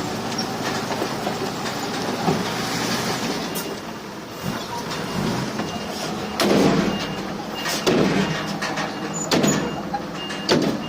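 Heavy diesel earthmoving machinery running steadily, with four loud metallic clanks in the second half, about a second and a half apart.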